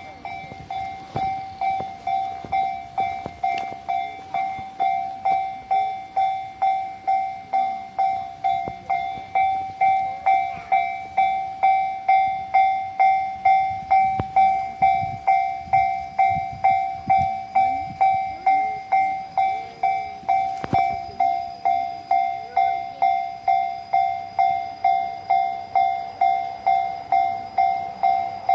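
Japanese railway level-crossing warning bell ringing steadily at just under two strikes a second, each strike dying away, growing louder over the first several seconds. A train rumbles faintly beneath it.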